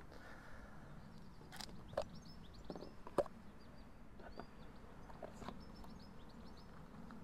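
Faint clicks and knocks of the plastic dust caps and flap of an electric car's charging port being handled, the sharpest about three seconds in, with birds twittering throughout.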